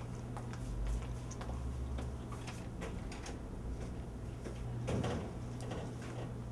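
Scattered small clicks and light handling sounds over a steady low hum, with a louder knock about five seconds in.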